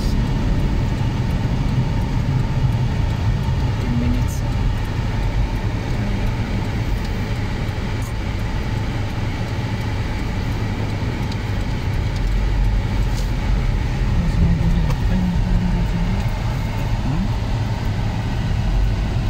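Honda Civic driving, heard from inside the cabin: a steady low engine and road rumble.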